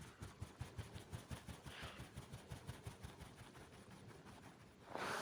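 Quiet pause with faint room noise and soft low taps, several a second. A brief soft hiss comes near the end.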